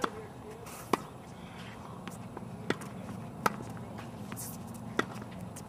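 Tennis balls struck by rackets and bouncing on a hard court in a ground-stroke rally: five sharp knocks at uneven gaps of about one to two seconds.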